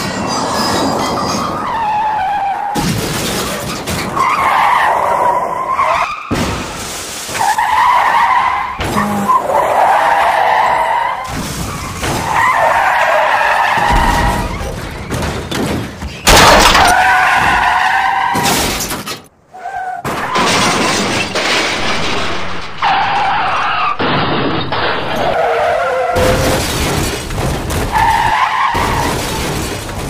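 A string of car-crash sound effects: tyres screeching in repeated skids, several ending in sudden crashes with breaking glass. The loudest crash comes a little past halfway.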